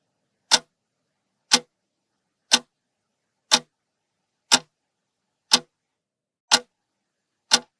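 Clock-tick sound effect, one sharp tick each second, counting down the time to answer.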